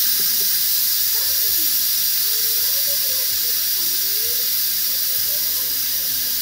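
Instant Pot's steam release valve venting a loud, steady hiss of steam: a quick release of pressure after pressure cooking.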